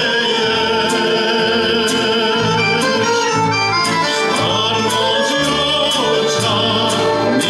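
Male voice singing a Slovak folk song, accompanied by a folk band with accordion, violin and double bass; a bass line steps from note to note underneath.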